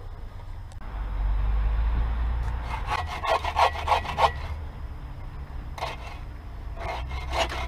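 Hand bow saw cutting into a log to make a notch: a burst of quick back-and-forth strokes, a pause, then more sawing near the end. A low rumble comes before the sawing starts.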